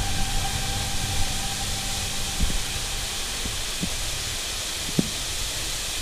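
Steady rushing hiss of a small waterfall pouring into a forest pool, with a few brief knocks about halfway through and near the end.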